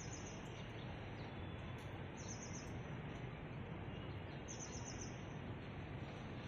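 Steady outdoor background hiss with a bird repeating a short, fast high trill about every two seconds, three times.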